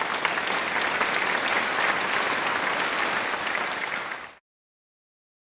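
Crowd applause, set in over dead silence as an added effect. It holds steady, then fades and stops a little over four seconds in.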